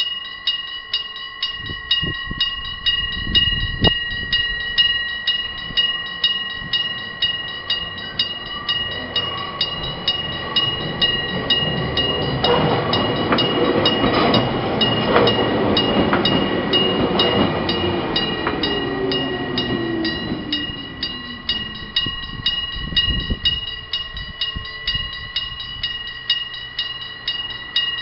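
Electric bell of a Japanese level crossing ringing in a steady, even rhythm of repeated strikes. Midway, a train passes through the crossing: a rumble of wheels swells and fades, with a falling whine as it goes.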